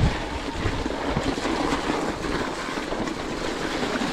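Mountain-bike tyres rolling and splashing along a waterlogged, muddy trail, with wind rushing over the microphone and a few low knocks from the bike.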